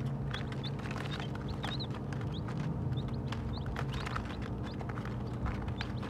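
Baby chicks peeping with scattered short, high chirps, while their beaks tap and peck at feed on a paper-covered floor in quick little clicks. A steady low hum runs underneath.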